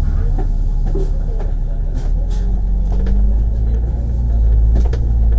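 Bus engine running and pulling as the bus drives along, heard from inside the cabin. The engine note steps up in pitch about halfway through and grows louder near the end as the bus gathers speed, with a few light rattles from the body.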